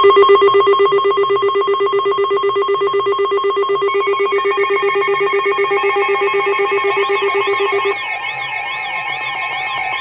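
NOAA weather alert radio sounding its alarm: a loud steady alarm tone starts abruptly with a rapid pulsing beep under it, and near the end a fast-warbling siren tone joins in as the beep stops. The radio is signalling an incoming warning that it shows as unrecognized.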